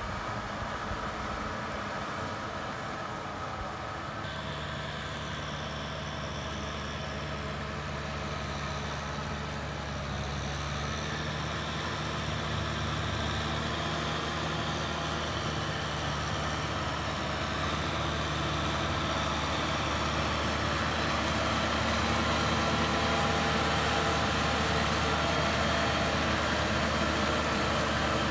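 Kubota M6040SU tractor's diesel engine running steadily under load while it drives a rotary tiller through flooded paddy mud. It grows louder toward the end as the tractor comes close.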